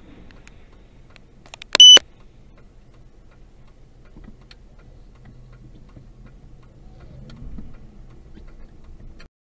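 A single short, loud, high-pitched electronic beep, about a quarter of a second long, over a low steady hum. The sound cuts off to silence just before the end.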